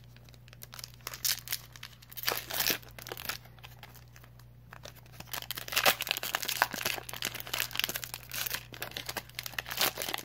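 Foil wrapper of a Pokémon card booster pack crinkling and tearing as it is opened by hand, in a run of short crackles that grow busier in the second half, over a faint steady low hum.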